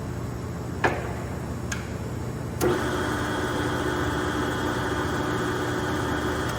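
LeBlond Regal sliding gap bed lathe under test run: steady machine hum with two sharp clicks, then a clunk about two and a half seconds in, after which a steady pitched running tone joins and holds.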